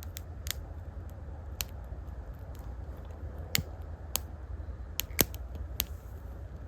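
Irregular sharp snaps and clicks of small damp twigs being broken and laid onto a fire stack, about ten spread over a few seconds, over a steady low rumble.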